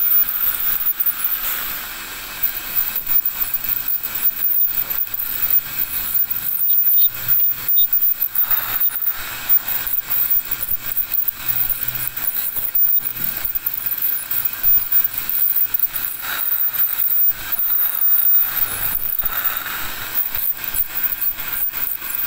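Ultrasonic dental scaler working tartar off the teeth: a steady high-pitched whine with uneven buzzing and scraping as the vibrating tip moves over the tooth surface.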